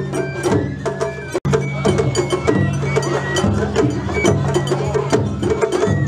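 Japanese festival float music (matsuri-bayashi): dense, quick percussion strikes over held low tones, with short high pitched notes. The sound briefly cuts out about one and a half seconds in.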